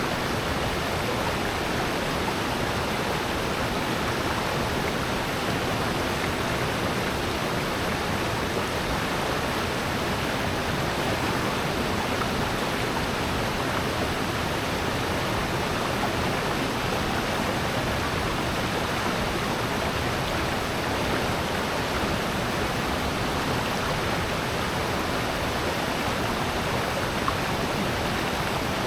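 Water rushing steadily down a rocky valley stream, an even, unbroken rush with no other events.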